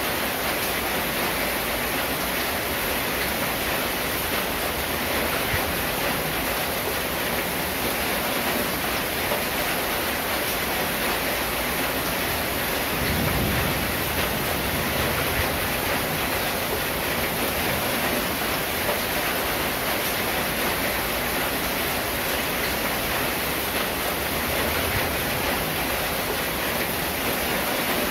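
Steady rain drumming on a corrugated zinc (seng) roof, a dense even hiss. A brief low rumble comes in about halfway through.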